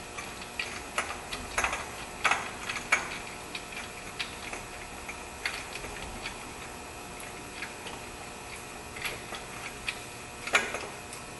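Light, irregular clicks and taps of a hand and tools on metal parts while a belt tensioner bolt is worked out. The clicks come about every half second for the first few seconds, then fewer and further apart.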